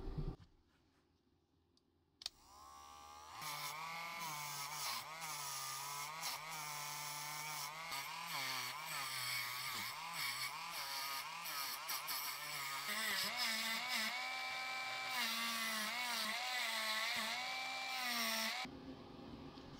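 A small handheld electric power tool, such as a rotary tool, switched on with a click, spinning up and running with a pitch that wavers as it is loaded. About two-thirds of the way through it jumps to a higher speed, and it cuts off sharply near the end.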